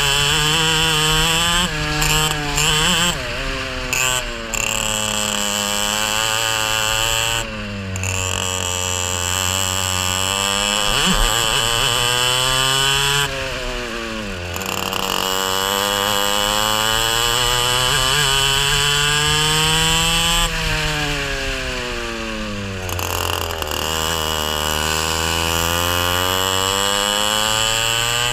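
Racing kart engine heard from the driver's seat, its pitch climbing steadily along the straights and dropping sharply each time the throttle is lifted for a corner, several times over.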